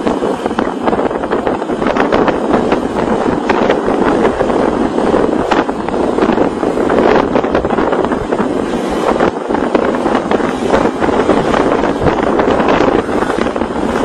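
Wind buffeting the microphone of a phone carried on a moving vehicle, a loud steady rushing with frequent irregular gusts, over the vehicle's road and engine noise.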